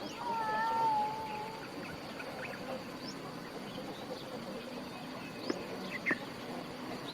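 A kitten meowing once, a long high wavering call over the first second and a half, followed by faint background with a few brief chirps.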